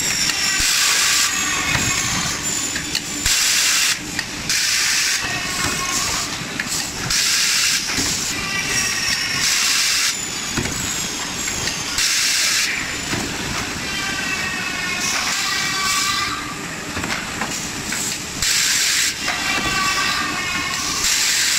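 CNC automatic screw drilling and fastening machine at work: short bursts of compressed-air hiss every two to three seconds, alternating with the whine of the screwdriving spindle changing pitch as it drives screws.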